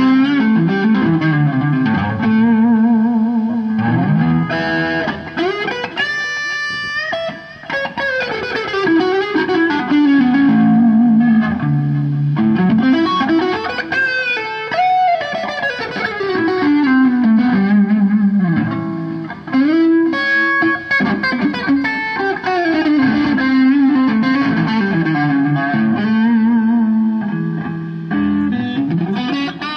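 Electric guitar played through distortion and effects: a continuous melodic lead with bent notes and wavering vibrato.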